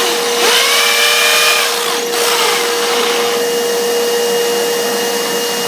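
Electric drill running at a steady speed with a constant whine, boring a hole into masonry.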